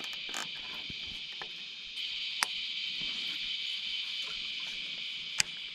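Cicadas singing in a steady, loud, shrill chorus. Two sharp clicks stand out over it, about two and a half seconds in and again near the end.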